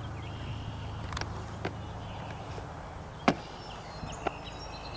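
Outdoor ambience: a steady low hum with faint high chirps, like birds, and one sharp click about three seconds in, the loudest sound, with a softer click about a second later.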